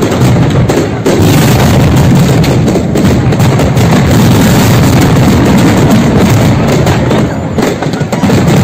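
A dense barrage of fireworks and firecrackers exploding at close range: one loud, unbroken din of crackling and bangs, with a brief dip about seven and a half seconds in.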